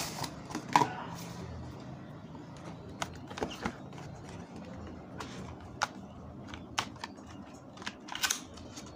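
Cardboard phone packaging being handled: the box sleeve slid off and the inner box opened, with scattered light clicks, taps and rustles of card.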